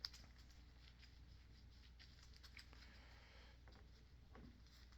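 Near silence over a low steady hum, with one sharp click at the very start and a few faint clicks and taps from the parts of a disassembled hydraulic gear pump being handled.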